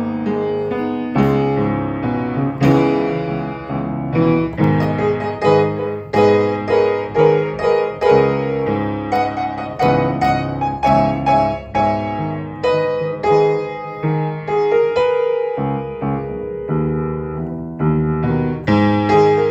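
Upright piano being played: chords and single notes struck about once or twice a second, each left ringing into the next.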